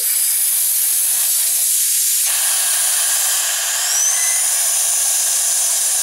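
Air hissing out of a scooter's front tire through the open valve stem, its core removed to deflate the tire before breaking the bead. A loud, steady hiss that grows fuller about two seconds in, with a short faint rising whistle about four seconds in.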